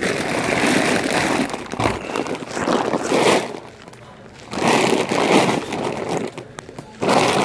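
Loud rustling and rubbing of fabric against the microphone of a phone carried in a pocket, in four bursts, the first lasting about two seconds.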